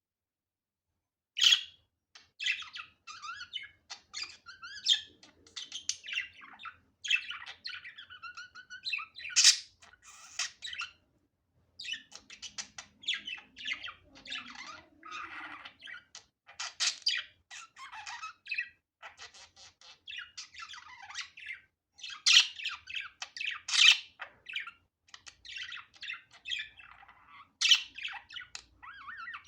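Budgerigar chattering: a rapid, continuous warble of chirps and squawks, with a few louder sharp calls.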